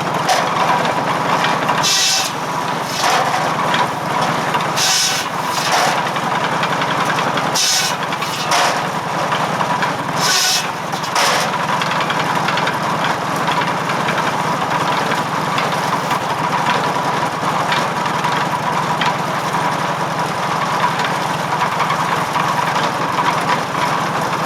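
Tractor-driven firewood circular saw running steadily over the 1945 McCormick W-4 tractor's engine, with a steady tone from the spinning blade. In the first dozen seconds it bites into wood several times, each cut a short burst of hissing, rasping noise, and it then spins free.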